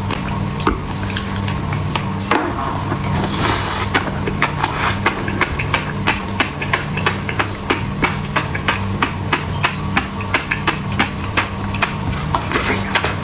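A refrigerator hums steadily while sharp kitchen knocks repeat at about three or four a second, steady from about halfway in. Two short hisses come a few seconds in.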